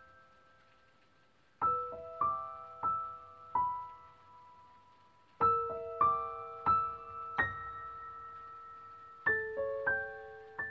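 Slow solo piano background music: short phrases of single ringing notes that fade away, with a quiet pause at the start and another about four to five seconds in.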